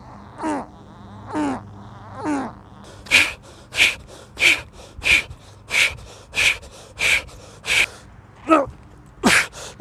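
A man's heavy breathing under exertion: three strained, moaning exhales that fall in pitch, then sharp rhythmic huffs of breath about one and a half a second while he jumps in place, with voiced groaning exhales again near the end.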